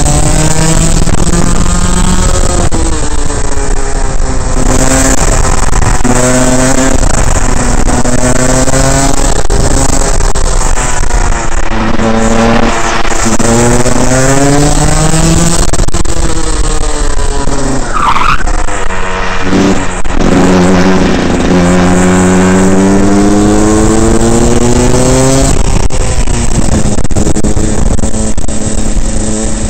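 Rotax Max 125 single-cylinder two-stroke kart engine heard close up from on board while lapping, its pitch repeatedly rising and falling as the revs climb on the straights and drop into the corners. A short high squeal comes about two-thirds of the way through.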